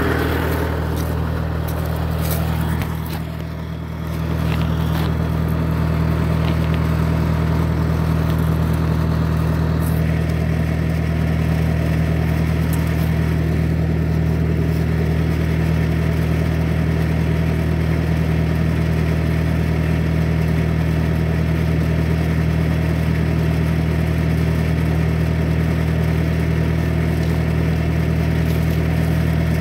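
Bobcat skid-steer's engine running steadily with a low, even drone. It dips briefly about three seconds in, then picks back up and holds steady.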